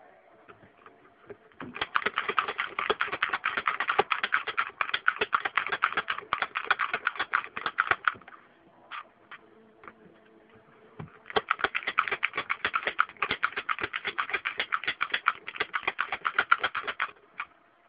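Manual pick gun snapping over and over as its trigger is squeezed, the needle flicking the lock's pins. It makes two long runs of fast clicks with a pause of about three seconds between them.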